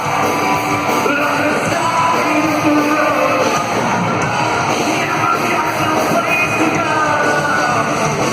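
Rock band playing live, loud and steady, with singing and yelling voices over it in a large hall.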